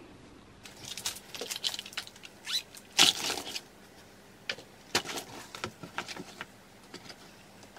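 Items being packed by hand into a round storage ottoman: plastic pouches rustling and a notebook knocking against the inside, in scattered short clatters. The louder ones come about three seconds in and again about five seconds in.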